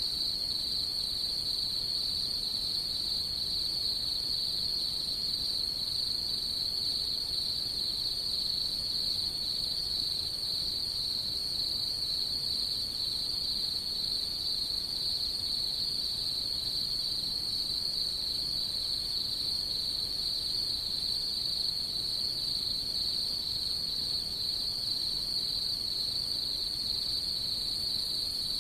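Night insects singing in a steady chorus: a continuous high trill with a fast pulsing texture, unbroken throughout.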